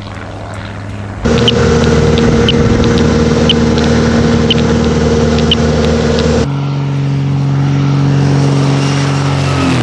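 Engine running steadily with a low drone, with short high beeps about once a second from a radio-tracking receiver picking up a lion's collar signal. The drone jumps louder about a second in and drops to a lower pitch past halfway.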